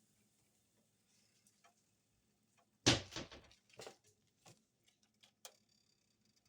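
A few sharp knocks and clatters of kitchen objects: one loud knock about three seconds in, a smaller one just before four seconds, then a few light clicks.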